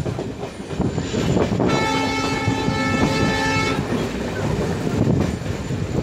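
Passenger coaches running over the track with a steady rumble and clatter of wheels, while the WDP4 diesel locomotive at the head of the train sounds its horn once for about two seconds, starting about two seconds in. The horn is heard from a coach well back along the train.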